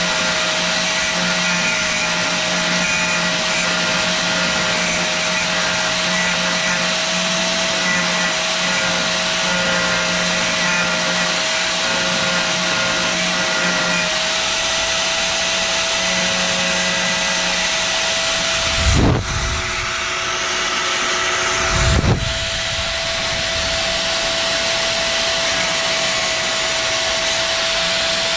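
Black+Decker cordless tool with a small round cutting wheel running steadily as it cuts aluminum framing, a continuous motor whine with grinding noise. Two brief low thumps come about two-thirds of the way through.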